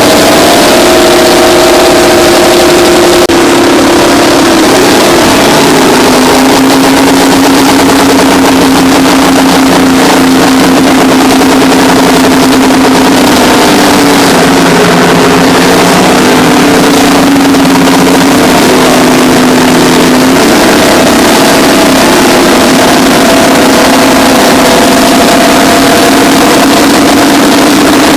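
Twin Detroit Diesel 6-71N two-stroke diesels of a Terex 82-80 bulldozer running loud and hard. The engine note drops about five seconds in, holds lower, and climbs back up about twenty seconds in.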